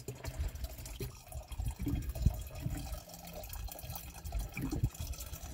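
Water running from the spigot of a plastic water container into a plastic jug, filling it, with some irregular low thuds.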